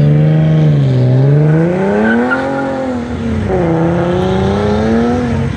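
Nissan 370Z Nismo's 3.7-litre V6 exhaust accelerating away hard: the revs climb for about two and a half seconds, drop with an upshift, then climb again in the next gear.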